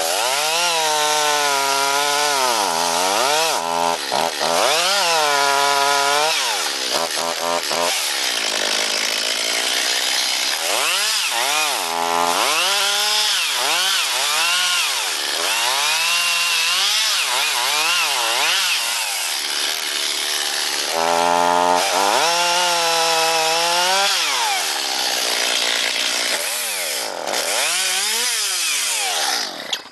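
Chainsaw running hard while cutting wood, its engine pitch dropping and climbing back again and again as the saw works through the cut. It cuts off suddenly at the end.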